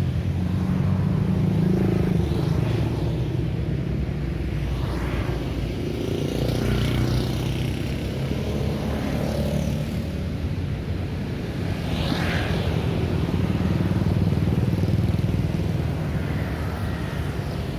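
Steady city street traffic: motorcycles and cars passing in a continuous stream, with engine rumble and rising and falling swells as vehicles go by.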